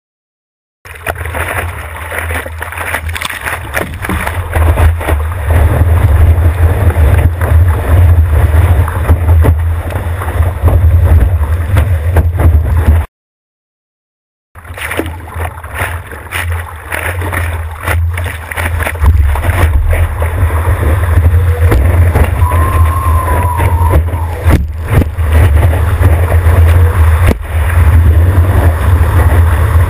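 Loud rush of water and wind against a GoPro mounted on the nose of a stand-up paddleboard as it is paddled and surfed through breaking waves, with a heavy low rumble of buffeting. The sound is silent for a moment at the start and cuts out for about a second and a half midway.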